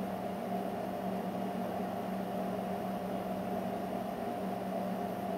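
Steady background hum with a faint hiss, unchanging, in a small room.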